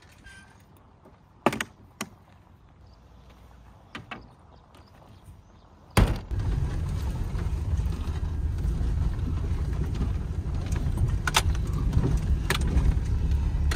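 A few light knocks of gear being stowed in the back of a pickup camper shell. About six seconds in, a sharp knock, then the steady low rumble of a 2003 Toyota Tacoma driving on a dirt track, heard from inside the cab, with a couple of sharp rattles.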